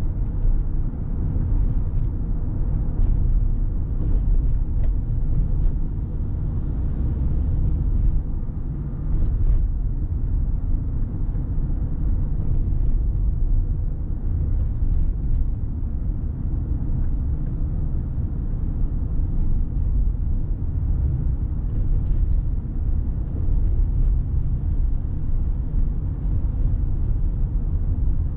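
Steady low rumble of a car being driven: road and engine noise, with scattered faint ticks.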